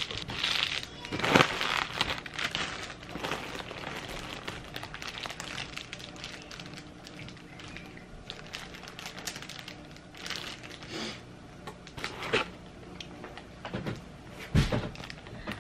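Foil bubble insulation liner being handled and unwrapped by hand: irregular crinkling and crackling, with a few louder crinkles about a second in and again near the end.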